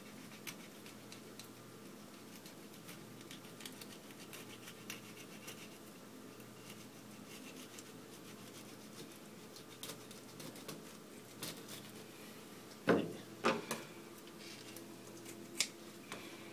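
Kitchen knife scraping and cutting along the backbone of a small bluegill on a cutting board lined with paper towel: faint scratchy clicks, with a few louder knocks about three-quarters of the way through. A low steady hum runs beneath.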